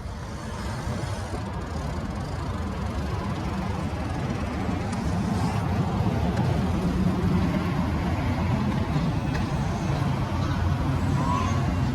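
City street traffic: a steady low rumble of passing vehicles, growing louder about four seconds in.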